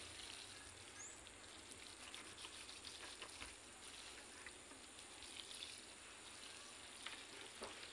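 Faint shower of water from a watering can's rose, pattering onto the wet bark-and-soil mix in a plant pot.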